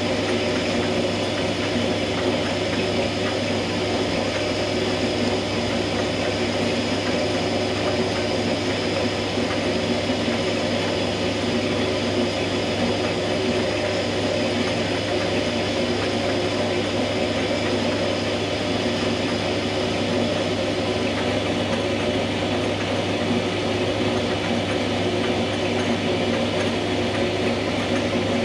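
Small benchtop metal lathe running steadily, its motor and gear train humming, while a boring bar cuts a 45-degree angle inside the bore of the spinning workpiece. A faint high whine fades out about three-quarters of the way through.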